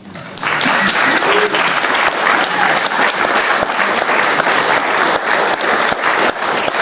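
Audience applauding, a dense patter of many hands clapping that starts about half a second in, at the end of a speech.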